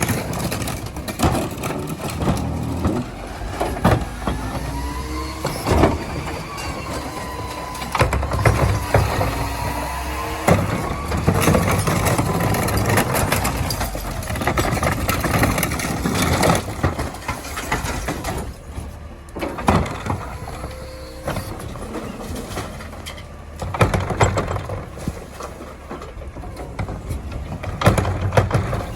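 Garbage truck packing recycling: the hydraulic packer whines, rising and falling in pitch, over the running engine, with repeated clanks and knocks from the load.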